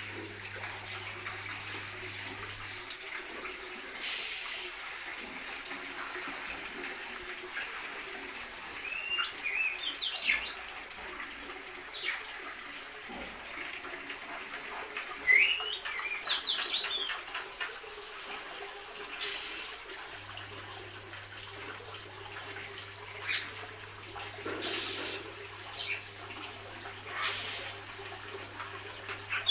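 Birds in an aviary chirping: two bursts of quick, rising twittering calls, about a third of the way in and again a little past halfway, with scattered single chirps later, over a steady rushing hiss.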